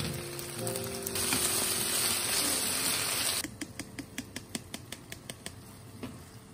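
Chicken thigh pieces and zucchini sizzling in a hot frying pan, loudest for about two seconds. After that the sizzle drops and a run of light clicks, about four a second, comes through as the food is stirred in the pan.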